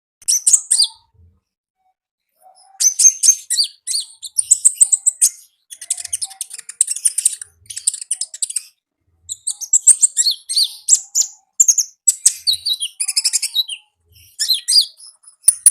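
Konin, a small songbird kept by Indonesian bird fanciers, singing in quick runs of high, rapid chirps. The runs come in phrases of one to three seconds with short pauses between them.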